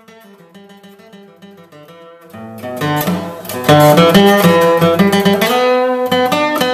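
Background music led by plucked guitar, quiet at first and growing much louder about two and a half seconds in.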